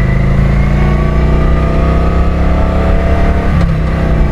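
Kawasaki Vulcan 900's V-twin engine pulling the sidecar rig as it accelerates, its pitch rising slowly, with a brief break in the sound about three and a half seconds in.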